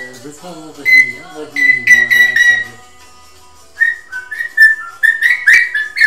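African grey parrot whistling short high notes over recorded singing with instruments. The singing stops about three seconds in, and the parrot goes on with a quick run of whistled notes stepping up and down in pitch.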